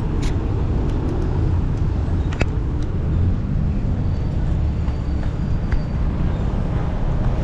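Busy city street traffic: a steady, loud rumble of vehicle engines and tyres, with a few short clicks.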